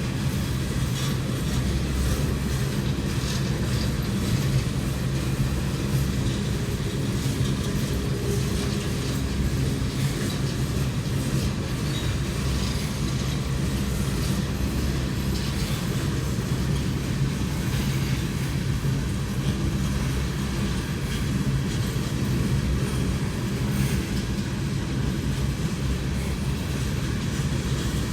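Coal train rolling past: a steady rumble and rattle of freight car wheels on the rails.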